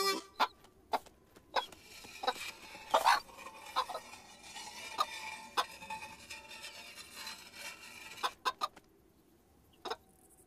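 Cartoon hen clucking in short, scattered calls over a quiet background, with a near-silent pause shortly before the end.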